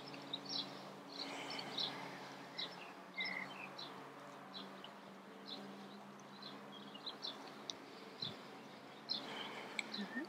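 Small birds chirping: many short, high calls scattered throughout, over a faint steady low hum.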